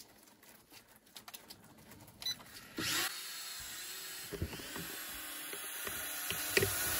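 ATTOP X-Pack 10 mini quadcopter's motors and propellers spinning up suddenly about two and a half seconds in as it lifts off. They then keep up a steady high-pitched whine while it hovers.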